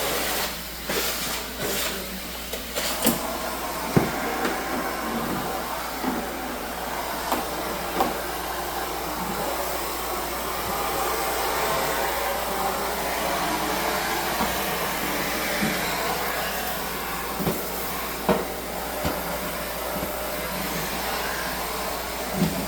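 Central vacuum cleaner running with its floor piece drawn over a hard floor: a steady hiss of suction, with scattered clicks and knocks as the tool bumps the floor, most of them in the first few seconds.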